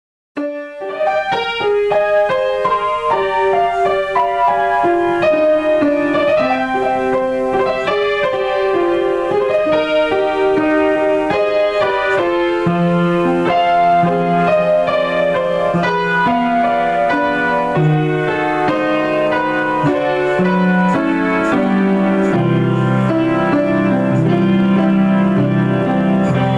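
Grand piano played solo in an improvised piece, starting about half a second in with a stream of quick notes in the middle register. Lower bass notes come in about halfway through and grow heavier near the end.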